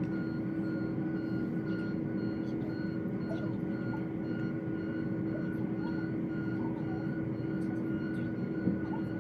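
Steady machinery hum with several constant whining tones and a few faint clicks.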